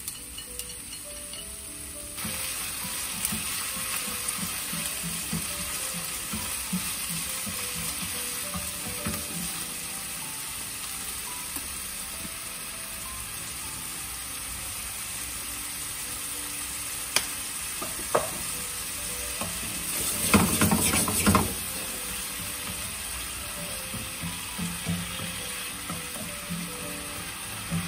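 Pieces of meat and green onion sizzling as they fry in an oiled nonstick frying pan over a gas burner, stirred with wooden chopsticks and a wooden spatula that tap and scrape the pan. The sizzling picks up about two seconds in and flares louder for a second or two about twenty seconds in.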